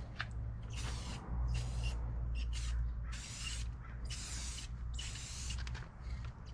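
Aerosol spray can of clear coat hissing in a series of short bursts, about six or seven, as clear coat is sprayed onto a sanded plastic headlight lens. A steady low rumble runs underneath.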